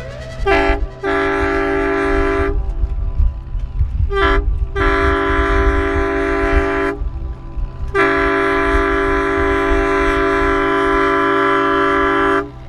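Boat horn sounding a series of steady blasts: a short blast then a long one, again a short then a long, then a final long blast of over four seconds, over a low steady rumble.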